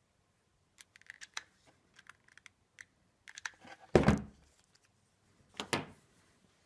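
Small parts handled on a workbench: a scatter of light clicks and taps, then two louder knocks about four and nearly six seconds in, the first the loudest, as pieces are set down.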